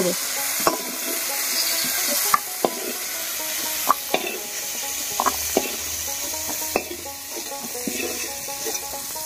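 Green peas frying in mustard oil sizzle steadily in a wok (karai) while a flat metal spatula scrapes them out into a steel bowl. The spatula clinks sharply against the metal about eight times over the first seven seconds.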